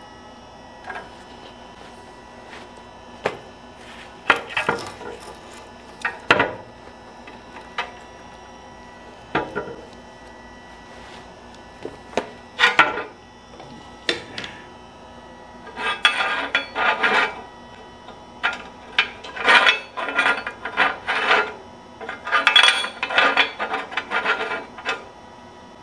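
Steel parts and locking clamp pliers handled on a steel workbench: scattered clanks, knocks and scrapes. They are sparse at first and come in quick clattering runs over the last ten seconds.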